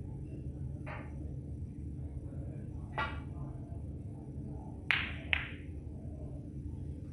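Snooker cue and balls: a faint click about a second in and a cue striking the cue ball about three seconds in, then two loud sharp clacks of balls colliding, less than half a second apart, around five seconds in. A low steady hum of the hall runs underneath.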